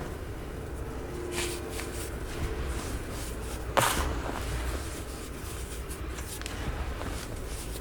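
Snowy-textured baking soda being crushed and squeezed by hand, giving a few soft, scattered crunches, the loudest about four seconds in.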